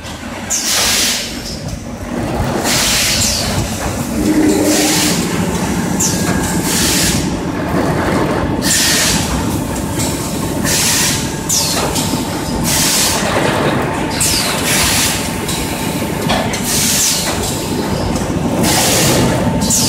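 Six-cavity PET stretch blow molding machine running: repeated sharp hisses of compressed air about every second or two, which are the blow air being exhausted after each blow cycle, over a steady mechanical clatter and a faint steady high hum.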